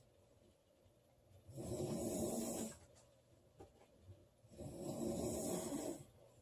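A woman snoring in her sleep: two snores of about a second each, roughly three seconds apart, with quiet gaps between.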